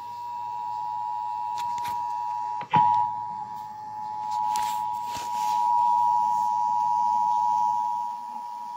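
Emergency Alert System attention signal: two steady tones (853 and 960 Hz) sounding together without a break, with a sharp click about two and a half seconds in.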